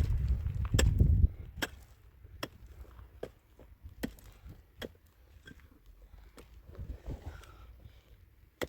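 Evenly spaced knocks on wood, about one every 0.8 seconds. A low rumble underneath stops about a second in.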